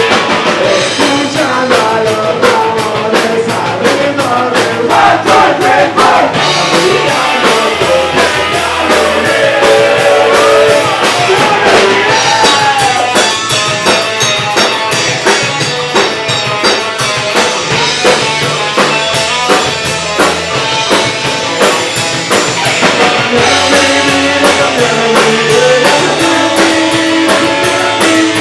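Punk rock band playing live: distorted electric guitar, electric bass and a driving drum kit, with a sung vocal line over them.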